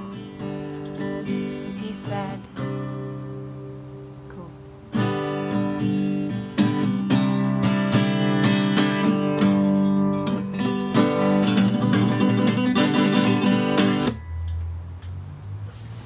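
Acoustic guitar strummed and picked in the instrumental close of a song: softer for a few seconds, then fuller strumming from about five seconds in, stopping abruptly about two seconds before the end.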